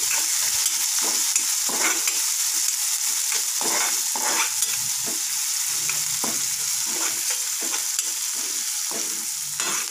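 Crushed green chilli and garlic sizzling in hot oil in a kadai, with a spatula scraping and knocking against the pan at irregular moments as it is stirred.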